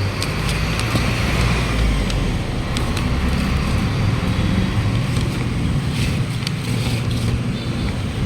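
Steady road traffic: vehicle engines running with a low rumble, and a few sharp clicks and knocks.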